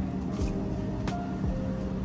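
Soft background music over a steady low hum.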